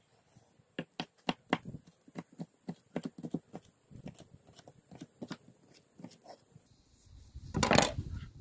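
Chef's knife chopping green vegetable strips on a wooden cutting board: a run of sharp, irregular knocks, several a second. Near the end comes a louder clatter as the knife is set down on the wooden table.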